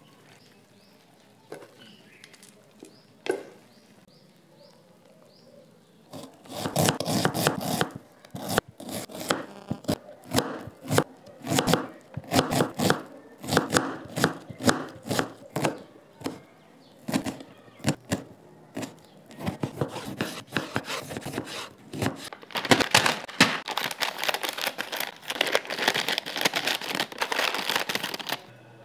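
A knife chopping onion on a cutting board, in quick runs of cuts, followed near the end by a crinkling plastic snack packet being torn open. The opening few seconds hold only a few faint clicks.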